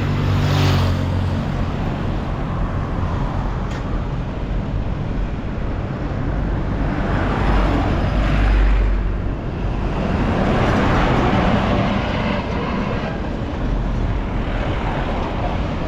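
Road traffic noise: motor vehicles running and passing, with two louder swells about halfway through.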